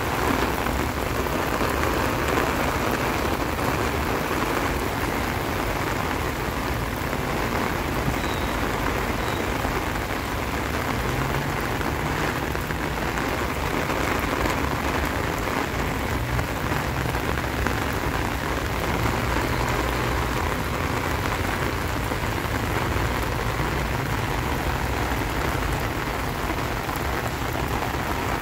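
Steady, heavy rain falling and pattering on surfaces, with a faint, uneven low rumble underneath from about ten seconds in.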